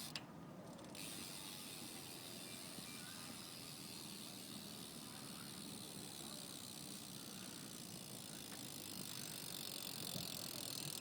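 BMX bike wheel spinning freely, its hub ratchet making a steady fast whirring buzz that starts suddenly about a second in and grows a little louder near the end.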